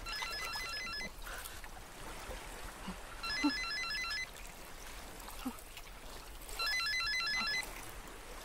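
Mobile phone ringing: a short electronic tune of quick high beeps, played three times about three seconds apart, over a faint trickle of water.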